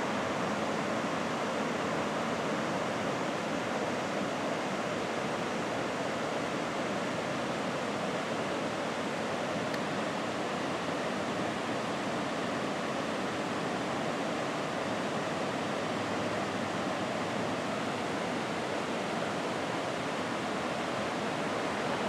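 Rushing water of a waterfall and creek, a steady, unbroken wash of noise.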